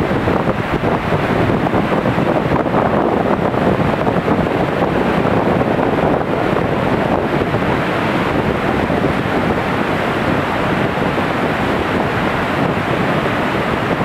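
Whitewater rushing steadily through the rapids below a small river waterfall.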